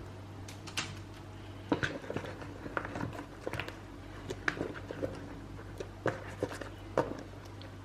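Scattered light taps and clicks of battered cauliflower pieces and utensils being handled and set on a parchment-lined baking sheet, over a low steady hum.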